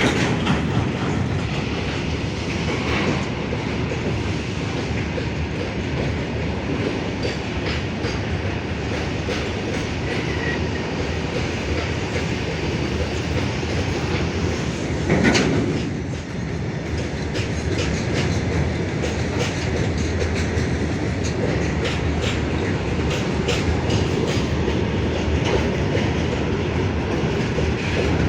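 Freight train rolling past steadily, its wheels rumbling and clacking over the rail joints, with two louder clanks, one at the start and one about halfway through.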